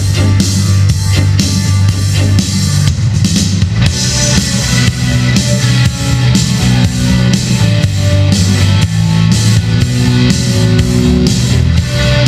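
Loud rock music with a steady drum-kit beat, bass and guitar.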